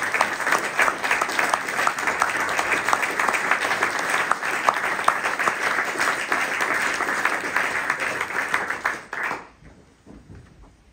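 Audience applauding, many hands clapping steadily; the applause dies away quickly about nine seconds in, leaving quiet room tone.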